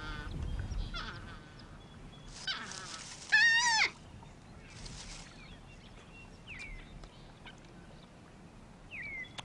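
North American porcupines calling during a breeding-season dominance dispute: a few short, high whining calls that bend in pitch, the loudest a quavering one a little over three seconds in, with brief noisy bursts between them.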